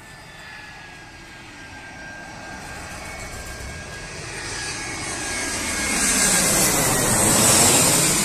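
Twin-engine jet airliner on landing approach, flying low overhead: the engines' whine and rush grow steadily louder and peak near the end, with a high whine gliding slowly down in pitch.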